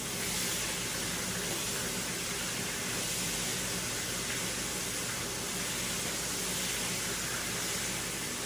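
Onions frying in hot oil in a frying pan, a steady sizzle.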